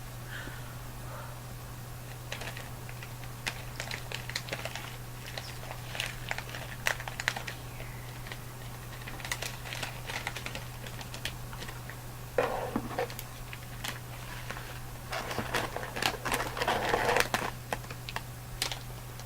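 Close-miked crinkling and crackling of candy packaging with irregular sharp clicks. It is heavier in two spells in the second half, over a steady low hum.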